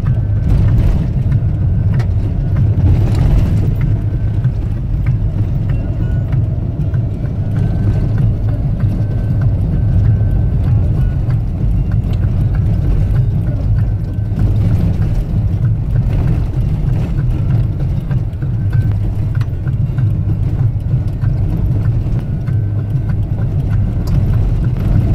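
Steady low rumble of a 4x4 driving on a rough dirt road, engine and tyre noise heard from inside the cabin, with a few faint knocks.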